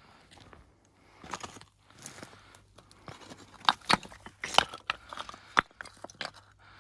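Stones clacking and scraping against each other as they are handled, a run of irregular sharp knocks, with the loudest few in the second half.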